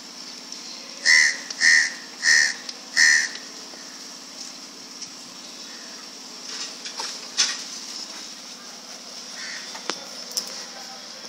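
An animal calling four times in quick succession about a second in, each call short and loud. A few faint clicks follow later.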